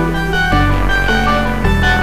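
Instrumental music with bass notes changing about every half second to second.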